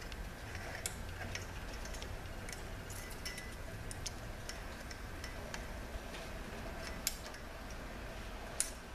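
Scattered light metallic clicks and ticks from a feeler gauge working a new piston's lip seal into a Chrysler 62TE transmission's input clutch drum, held down under a press. A low steady hum runs underneath.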